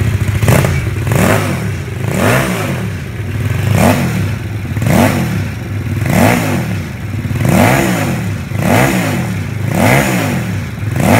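Homemade L-twin motorcycle engine, built from two small single-cylinder engines and breathing through freshly fitted handmade headers and twin mufflers, being revved in repeated throttle blips. Each blip rises and falls in pitch, a little over a second apart.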